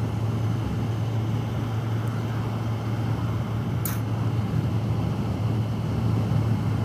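Honda CBR1100XX Blackbird's inline-four engine droning steadily at cruising speed, with road and wind noise, recorded from the rider's helmet. A single short click about four seconds in.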